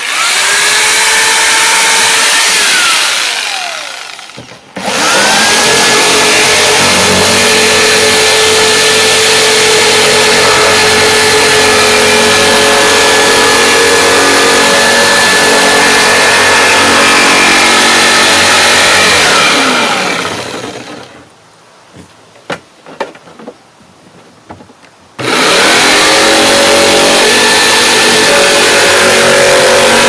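Corded Skil jigsaw cutting a circular hole in a plastic cooler lid. It runs in three goes: briefly at first, winding down about three seconds in, then for about fifteen seconds before winding down again, and after a few small clicks and taps it starts once more near the end.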